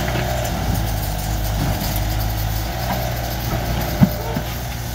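Mini excavator engine running steadily while the machine digs soil, with a sharp knock about four seconds in and a smaller one just after.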